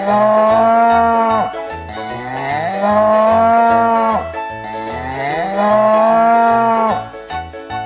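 A cow mooing three times. Each moo is long, about one and a half to two seconds, rising in pitch at the start and dropping off at the end. Under it runs a light children's backing track with a steady beat.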